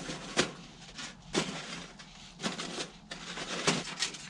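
Crunching bites of prawn crackers, a series of sharp crisp crunches about one a second.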